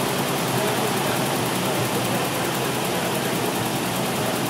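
Porsche 914's 2056cc Type 4 flat-four, on twin 40 Dellorto carburettors, running steadily on a rolling road dynamometer with no change in engine speed.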